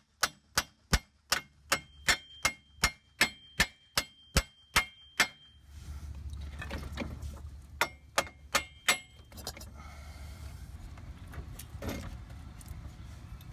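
Steady metal-on-metal tapping, about three taps a second with a ringing note, as the front drive axle is worked loose in the wheel hub; the tapping stops about five seconds in. After that come low rumbling and a few knocks as the axle is handled and pulled toward the hub.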